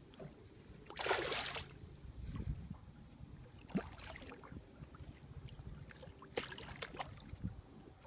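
A hooked asp thrashing and splashing at the water's surface beside the boat: a burst of splashing about a second in, another around four seconds, and more near the end, over a low rumble.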